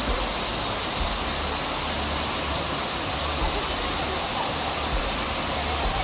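Large waterfall: falling water making a steady, unbroken rush.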